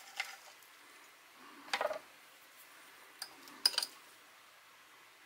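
Fork and knife scraping and clinking against a plate: a short scrape about two seconds in, then a click and a sharper clink a little past three seconds.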